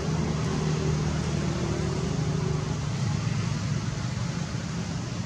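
Steady low rumble of road traffic with an engine hum, and a faint held engine tone in the first half.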